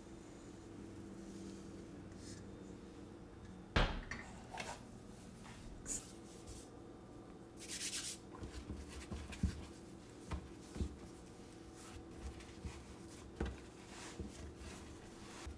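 Hands handling sourdough dough on a floured countertop: a sharp knock about four seconds in, a short hiss near eight seconds, then soft pats, taps and rubbing as the dough is stretched and folded. A low steady hum runs underneath.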